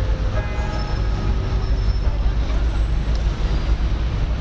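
Outdoor city ambience dominated by a heavy, uneven low rumble, with faint voices in about the first second.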